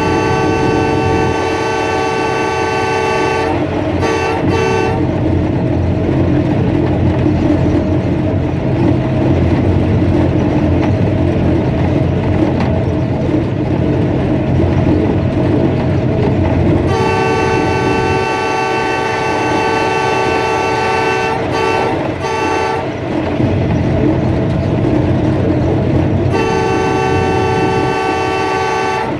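Diesel locomotive air horn, several tones at once, sounding a long blast, a short one, then two more long blasts with a few brief breaks. It warns as the train runs through a station without stopping. Underneath, the locomotive's engine and the wheels on the track run steadily.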